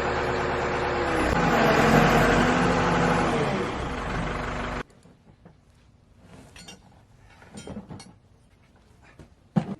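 A vehicle engine running loudly, its pitch dipping about a second in, then cutting off suddenly about five seconds in. Faint knocks and clatter follow.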